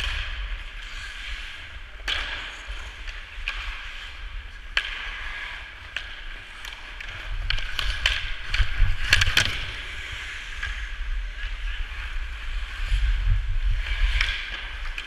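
Ice hockey skates carving and scraping on rink ice, with sharp clacks of sticks and puck scattered throughout. The busiest, loudest stretch of clacks comes about eight to nine seconds in, over a low rumble.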